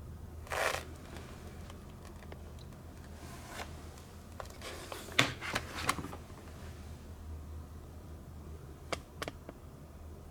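Quiet room tone with a steady low hum, a brief rustle about half a second in, and a few faint clicks, two of them close together near the end.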